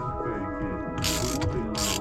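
Background music, with a ratchet wrench clicking in two short bursts, about a second in and again near the end.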